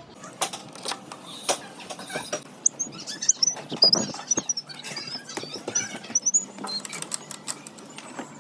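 Clicks and knocks of hand work on a sliding patio door handle set as its bolt is fitted and tightened, mixed with many brief, high, wavering squeaks.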